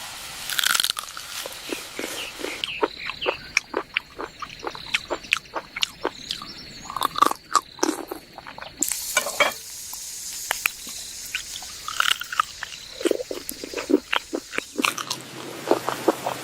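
Irregular sharp crunches and clicks, a few a second, with now and then a short ringing clink.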